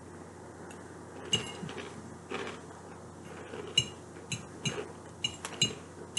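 A metal fork clinking and tapping against a dish about six times as the last bits of salad are picked up, each clink ringing briefly.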